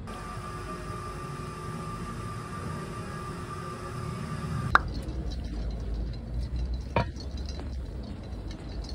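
Quiet café room sound with a steady faint whine over a low rumble, cut off by a sharp click a little past halfway. Then outdoor background rumble with a single step on asphalt about two seconds later.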